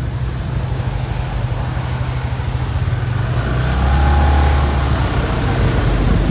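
Motor vehicle engine running steadily with road noise on a wet street, growing louder for about a second and a half around four seconds in as a bus passes close by.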